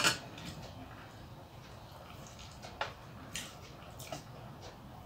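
Hand mixing rice on a metal plate: one sharp click at the start, then a few fainter clicks.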